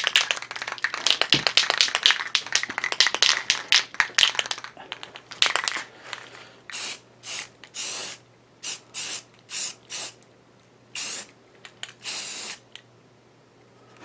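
Aerosol can of primer being shaken, its mixing ball rattling rapidly for about five seconds, then sprayed in a string of about ten short hissing bursts, the last one longer.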